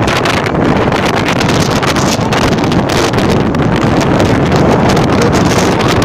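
Strong wind buffeting the microphone, a loud, unbroken rumble with rapid gusty fluctuations.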